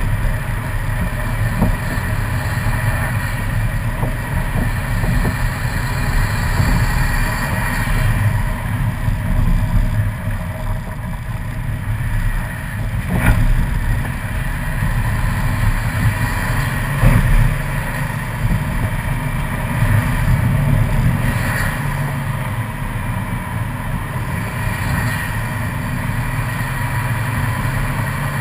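Subaru WRX turbocharged flat-four engine running as the car drives uphill, its pitch rising and falling, over steady tyre and road noise on a wet, slushy road surface. A couple of short knocks come partway through.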